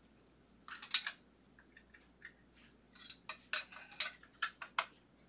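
Hard plastic card holders clicking and clattering as they are handled and sorted through, likely while looking for a larger magnetic card holder. A short brushing clatter comes about a second in, then a quick run of sharp clicks near the end.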